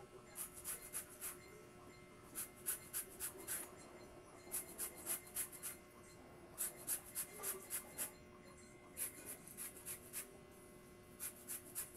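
A peeled santol fruit being grated by hand on a grater: quick rasping strokes, about six a second, in runs of about a second with short pauses between.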